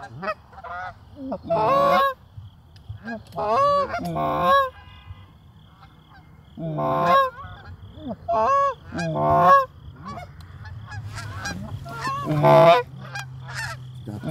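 Canada goose honks and clucks, loud and close, coming in repeated bursts every two to three seconds.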